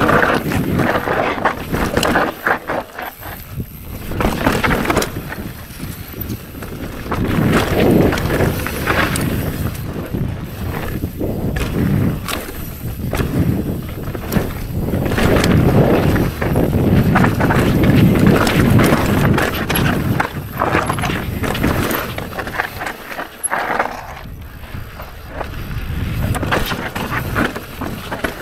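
Mountain bike descending a dry dirt and rock trail at speed: tyres running over dirt and stone, with a steady run of knocks and clatter from the bike over bumps and rocks, swelling and easing with the terrain.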